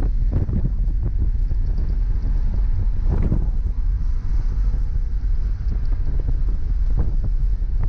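In-cabin sound of a BMW E30 M3's four-cylinder engine running steadily under road rumble, with wind buffeting the microphone. There is a brief jolt about three seconds in and another near the end.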